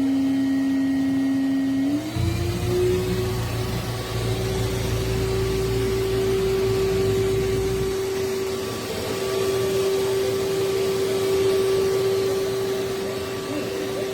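OPOWO dog grooming vacuum running with a steady motor whine. Its pitch steps up about two seconds in and then holds steady, with a low rumble for several seconds after the change.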